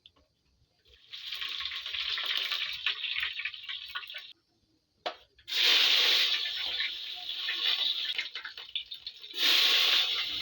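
Running water, heard as a steady rush in three stretches that each start and stop abruptly; the second and third are louder than the first.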